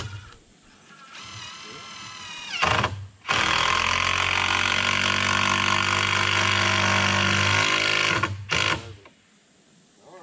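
Cordless power driver fastening a 2x6 beam to a wooden post: it spins up with a rising whine, then hammers steadily for about five seconds and stops, with one short final burst.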